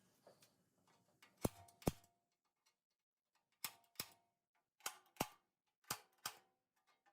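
Light metallic clicks in pairs, each with a short ring: a pair about one and a half seconds in, then three more pairs about a second apart.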